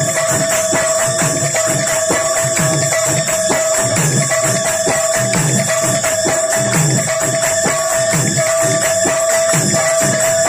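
Live folk drumming on large double-headed barrel drums beating a brisk, steady rhythm, with continuous metallic jingling and a single high note held over it.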